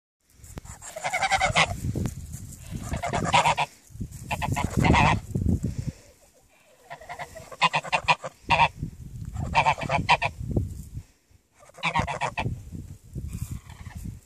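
Two American Buff geese honking in about six loud bouts of rapid repeated honks, one every couple of seconds, with a brief pause midway and a fainter bout near the end.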